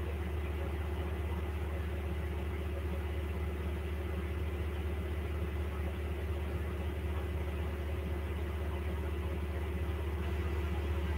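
A steady low hum, like a motor or fan running, with no change in pitch or level.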